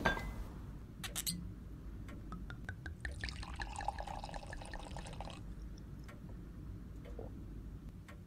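A drink poured into a glass for about two seconds, a few seconds in, the pitch of the pour rising as the glass fills. A short clink comes about a second in.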